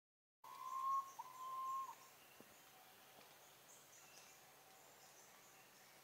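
Philippine pitta calling: two long, nearly level whistles back to back in the first two seconds. Faint high chirping goes on behind them.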